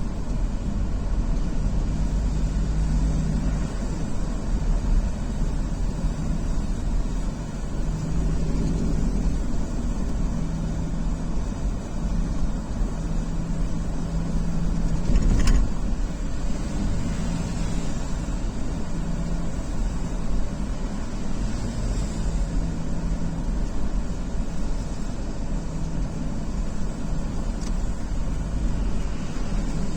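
Steady road vehicle noise: a constant low rumble with an engine hum that comes and goes. A single short sharp click about halfway through.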